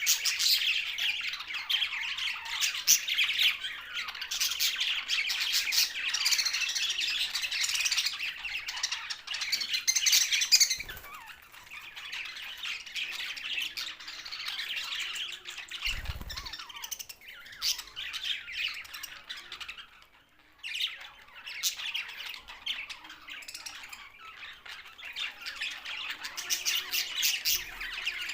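Several budgerigars chattering and squawking in a dense, continuous warble, easing off briefly about two-thirds of the way through. A couple of short low thumps sound in between.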